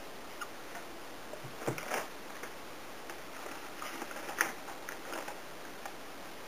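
Scattered light clicks and knocks of kitchen utensils and containers being handled, the sharpest about two seconds in and at about four and a half seconds, over a faint steady hiss.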